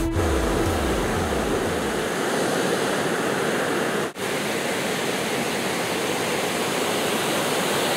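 Ocean surf breaking on a rocky shore: a steady rush of waves and white water, with a short drop at a cut about four seconds in. Faint background music fades out within the first two seconds.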